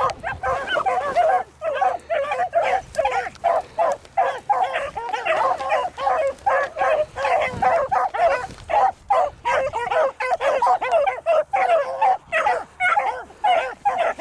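Beagle hounds baying as they run a rabbit's track: a rapid, unbroken run of short, overlapping yelping bays, several a second.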